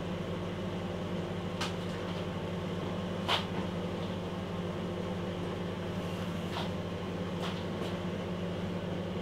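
Microwave oven running with a low, steady hum. A few faint short sounds come over it, the clearest about three seconds in.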